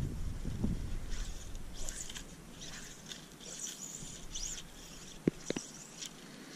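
Fly line being stripped in by hand and falling onto a rubber fly line mat on a skiff's deck: soft, repeated scratchy rustles, with two sharp clicks about five seconds in.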